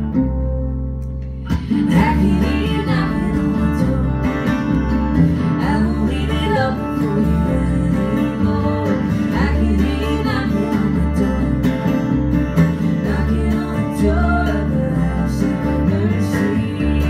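Live acoustic band playing an instrumental passage: two acoustic guitars over a plucked upright bass. After a held low chord, the full band comes in about a second and a half in.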